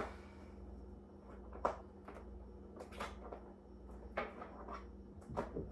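A few scattered light clicks and knocks, about four over five seconds, over a low steady hum.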